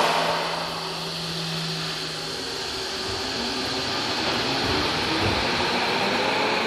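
Tobu 70000 series electric train pulling out of an underground station, its traction motors giving a low whine that slowly rises in pitch as it picks up speed. Running noise grows toward the end.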